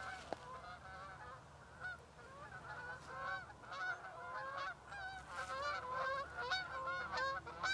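A flock of geese honking: many short calls overlapping one another without a break.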